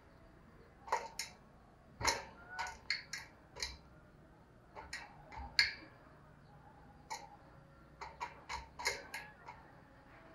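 Irregular sharp clicks and taps, some single and some in quick runs: a caged spotted dove pecking close to the microphone. It does not coo.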